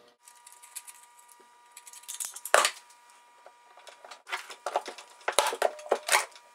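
DeWalt staple gun firing staples into the wooden framing of a plywood hull: a string of sharp snaps, the loudest about two and a half seconds in, then a quick cluster of shots in the last two seconds, over a faint steady tone.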